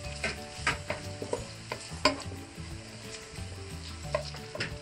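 Wooden spatula stirring and scraping chopped garlic, onion and tomato around a nonstick wok while the oil sizzles. The spatula knocks against the pan at irregular moments, the loudest about two seconds in.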